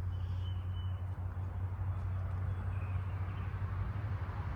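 Steady low hum under an even outdoor background noise, with a faint short high chirp about half a second in.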